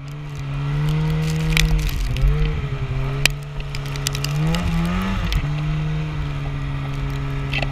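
Snowmobile engine running under throttle through deep powder snow, its pitch dipping briefly and then rising and falling again a couple of seconds later as the throttle changes, with a few sharp clicks over the steady engine note.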